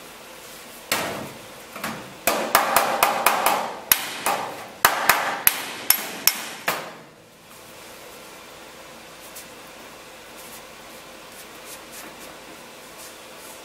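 Body hammer striking the edge of a sheet-metal wheel-arch panel: a quick series of about fifteen ringing metal blows, from about a second in to about seven seconds in, then it stops.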